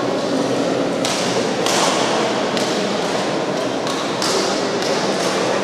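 Badminton rally: a racket strikes the shuttlecock about six times, roughly once a second, each hit a sharp crack with a short echo in a large hall. A steady background of hall noise runs underneath.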